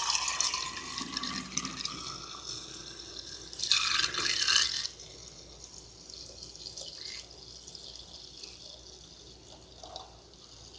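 Homemade coconut milk poured from a stainless steel bowl into a container: a steady splashing stream that swells briefly about four seconds in, then thins to a quieter trickle and drips.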